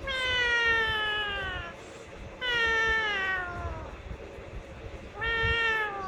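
Alexandrine parakeet mimicking a cat's meow: two long meows that fall in pitch, and a third beginning near the end.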